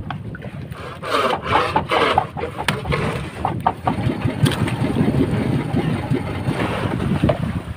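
Sharp knocks and splashing from a hooked skipjack tuna handled at the side of a wooden outrigger boat, thickest in the first few seconds, over a steady low rumble.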